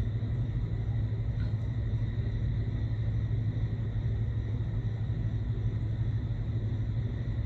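Steady low hum with a faint, even high whine over it, unchanging throughout.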